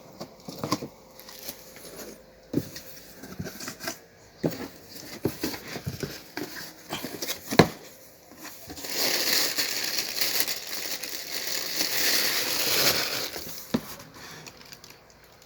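Packaging being handled, with scattered clicks and knocks. About nine seconds in, several seconds of continuous crinkling of wrapping.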